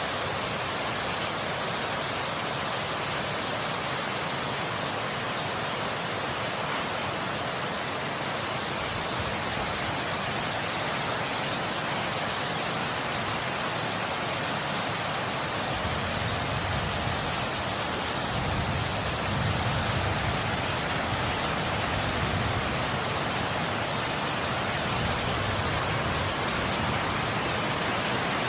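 Steady hiss of a winter storm: wind-driven snow and wind. A deeper low rumble joins about halfway through.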